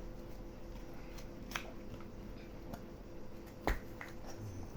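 Small packaging being handled and opened by hand: scattered light clicks and crinkles, with one sharper click a little before the end.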